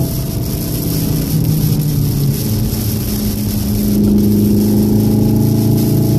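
VW Golf 7 R's turbocharged 2.0-litre four-cylinder heard inside the cabin. The engine eases off as the car slows for a corner and pulls again from about four seconds in, over a steady hiss of rain and tyre spray on the wet track.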